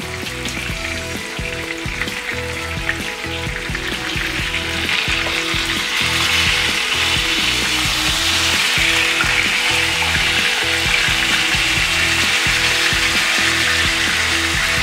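Whole tilapia frying in hot oil in a nonstick pan, sizzling, the sizzle swelling louder around the middle as one fish is turned over with tongs and a spatula. Background music plays underneath.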